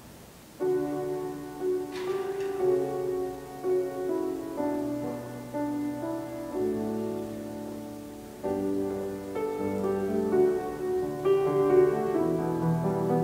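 Instrumental church keyboard music, piano-like, for the offertory of Mass. It starts about half a second in after near quiet and moves through held chords that change every second or so.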